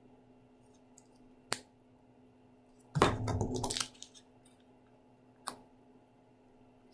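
Craft supplies handled on a table: a single sharp tap about a second and a half in, a brief rustling burst from the paper bag and cut-out paper about three seconds in, and another tap near the end, over a faint steady hum.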